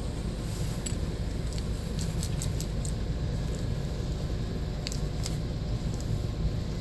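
Small metallic clicks and light tinkling of Nissan door lock cylinder wafers and key being handled during reassembly, a cluster about two seconds in and a pair about five seconds in, over a steady low hum.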